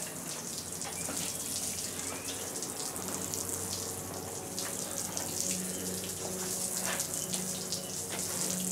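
Water-based concrete color wash pouring from a watering can and splashing onto a stamped concrete patio, a steady spatter.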